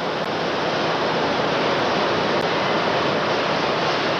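Steady rushing noise of factory machinery on a shovel plant's shop floor, swelling slightly in the first second and then holding even.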